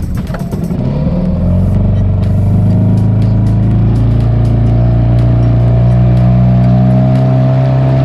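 Small outboard motor pushing a wooden boat. Its pitch rises over the first second or so, then it runs steadily at speed.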